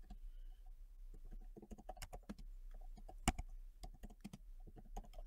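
Faint typing on a computer keyboard: irregular key clicks, several a second, with one sharper keystroke about three seconds in.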